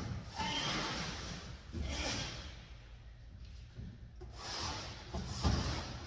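Heavy cardboard boxes being shoved and slid across a pickup truck's bed liner: several stretches of scraping and rubbing, with a dull thud near the start and a louder one about five and a half seconds in.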